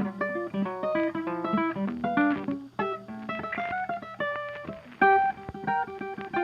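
Background music: plucked acoustic guitar playing a gentle, quick run of picked notes.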